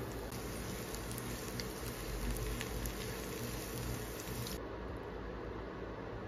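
Diced meat and mixed vegetables frying in a nonstick pan while a spatula stirs them: a steady patter and hiss with a few light clicks from the spatula. About three-quarters of the way through, the higher hiss drops away and the sound turns duller.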